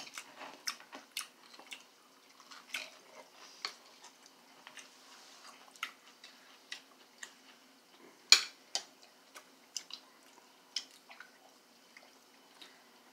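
Eating sounds: chewing, with a scatter of short, sharp clicks of a fork and spoon against a plate, the loudest about eight seconds in.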